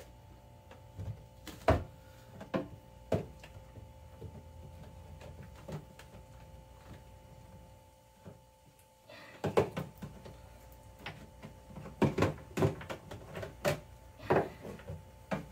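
Scattered knocks, taps and clatter of things being handled in a small kitchen, thicker in the second half, over a faint steady hum.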